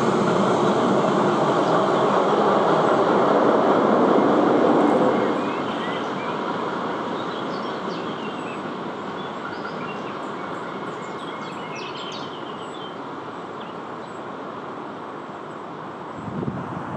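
Railway train rolling past, a steady rumble of wheels on the track that drops off about five seconds in and then slowly fades as it moves away.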